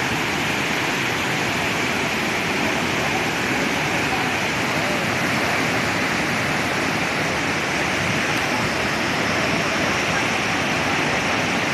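Purva waterfall on the Tamas river: a large fall of water making a steady, loud, unbroken rush.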